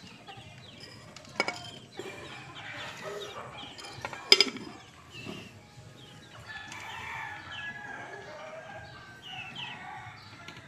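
Domestic fowl calling: a run of short clucks and chirps, with two sharp knocks about one and a half and four seconds in, the second the loudest.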